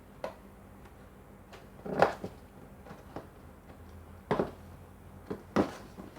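Cardboard console box being handled and opened: a few scattered knocks and scrapes of cardboard, the loudest about two seconds in.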